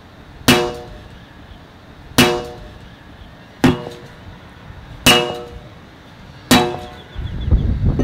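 Five sharp strikes about a second and a half apart, each with a brief ringing tone, followed near the end by a low rumble.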